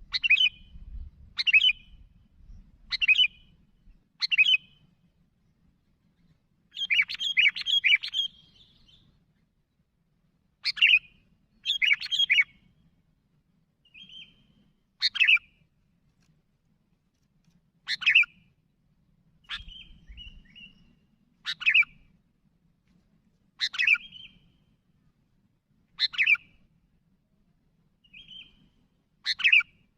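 Sooty-headed bulbul (kutilang) calling: short, sharp notes every one to three seconds, some in quick runs of three or four, with a few softer short notes between them.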